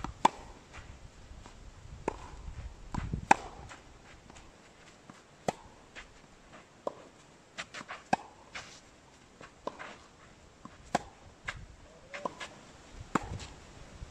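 Tennis balls struck with rackets and bouncing on a clay court during rally practice: a string of sharp pops a second or two apart, the loudest about three seconds in.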